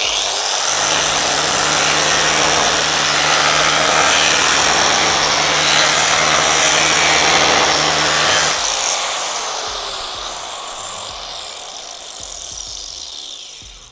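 Angle grinder with a diamond cutting disc sawing into a wooden plank, motor running under load. After about eight and a half seconds the cut ends, and the grinder's running sound fades away towards the end.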